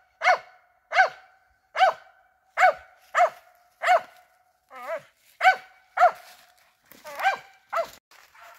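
A squirrel-hunting dog barking steadily, about eleven sharp barks spaced roughly three-quarters of a second apart, turning weaker and less regular near the end. This is the kind of steady barking a squirrel dog gives at a tree.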